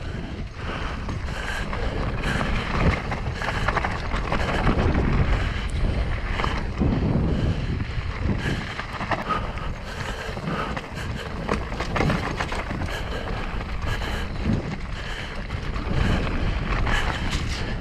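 Mountain bike descending a dirt trail at speed: a steady rush of wind on the microphone and tyre noise, broken by frequent short rattles and knocks as the bike goes over bumps.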